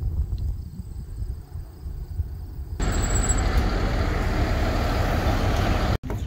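Low wind rumble on the microphone, then, from about three seconds in, a loud, steady wash of street traffic noise, cut off briefly near the end.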